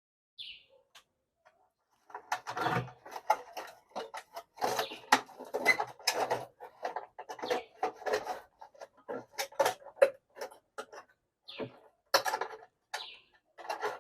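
Irregular clicks, scrapes and rattles of hands working on the parts of an opened electric hot plate burner, starting about two seconds in.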